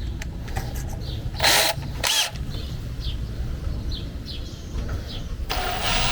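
Power drill: two short bursts about a second and a half and two seconds in, with small handling clicks, then the drill runs steadily from about five and a half seconds in. A low wind rumble on the microphone sits underneath.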